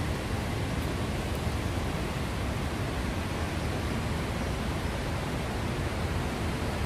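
Steady rushing of a fast-flowing river through a stone gorge: an even wash of water noise, strongest in the low end.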